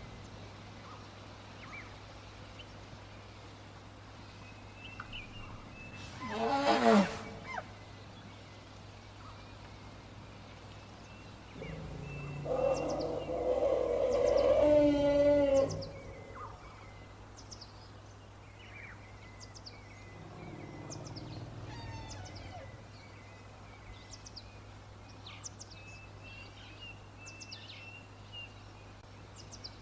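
African bush elephant calling twice: a short call that falls in pitch, then a longer, louder call. Birds chirp throughout over a steady low hum.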